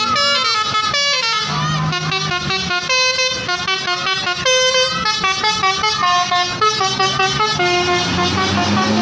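Basuri telolet multi-tone horn on a tour bus playing a quick tune of short notes that step up and down in pitch, several tones often sounding together.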